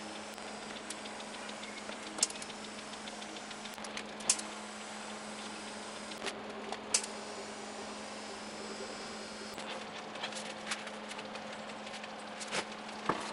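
Arc welding on a steel frame: a steady hum and hiss, broken now and then by sharp clicks and crackles. A faint high-pitched whine from a faulty shielding-gas pressure regulator sits underneath.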